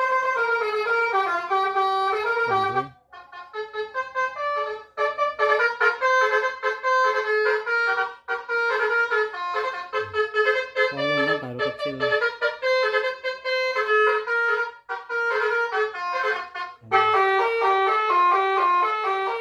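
Electronic "basuri" melody horn (telolet-style) playing fast tunes of brassy, horn-like notes through twin TOA horn speakers wired in parallel, with brief breaks between phrases about 3, 8 and 15 seconds in.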